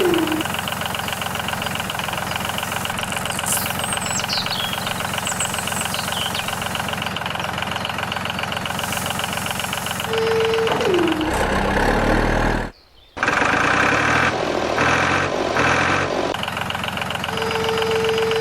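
An engine running steadily with a fast knocking rhythm. A held tone that slides down in pitch sounds about ten seconds in and again near the end. The sound cuts out for a moment about thirteen seconds in.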